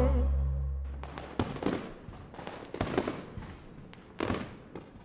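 Fireworks going off: a string of sharp pops and crackles, a few per second, after the last low notes of a song die away in the first second.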